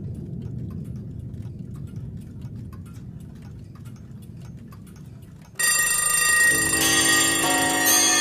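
Many clocks ticking together over a low rumble. About five and a half seconds in, a crowd of alarm clocks and chimes starts ringing all at once, loud and sudden: the recorded clock introduction of the song.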